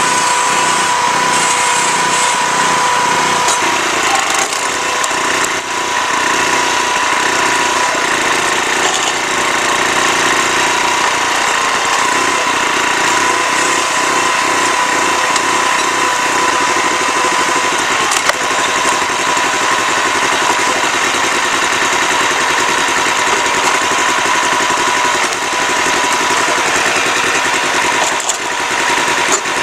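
Small gasoline engine of a 35-ton hydraulic log splitter running steadily while the splitter works through a log, with a single sharp knock about eighteen seconds in.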